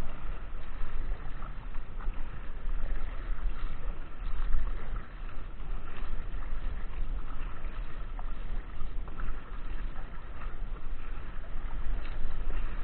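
Wind buffeting the microphone: a steady low rumbling rush that swells and dips with the gusts.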